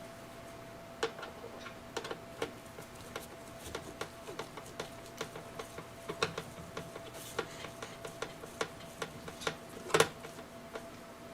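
Irregular small clicks and ticks, several a second, from hands working the rocket's nose cone into the airframe and its screws, with a sharper click about ten seconds in. A faint steady hum runs underneath.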